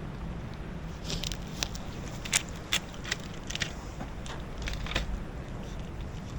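Stray cats eating canned food: a scatter of small wet clicks and crackles from chewing, busiest from about a second in, over a low rumble of wind on the microphone.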